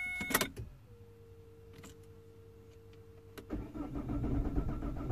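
Vauxhall Vectra 1.9 CDTI (Z19DT) diesel: a steady tone stops with a click just after the start, then a faint steady hum. About three and a half seconds in, the starter begins cranking the engine, which does not fire. The rail pressure control valve is not being pulsed, so rail pressure climbs too high and the ECU shuts the injectors off.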